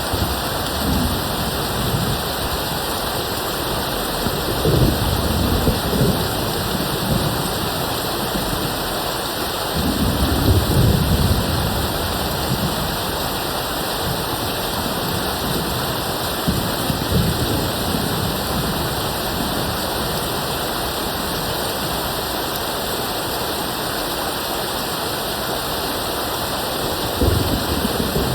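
Steady rain hissing, with low rolls of distant thunder about five seconds in, around ten to twelve seconds in, and again near the end.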